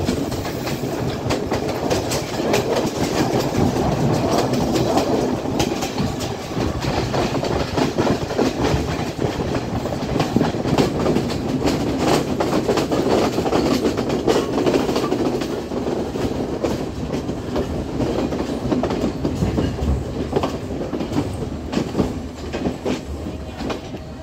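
Class S12 diesel multiple unit running along the track, heard through an open window: steady rolling noise with repeated wheel clatter and knocks over the rail joints. It gets quieter near the end.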